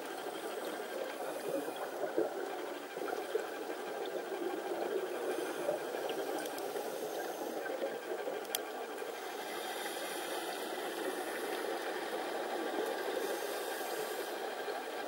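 Muffled underwater sound of scuba divers breathing out: a steady rushing hiss with faint crackling from rising exhaust bubbles, and one sharp click about eight and a half seconds in.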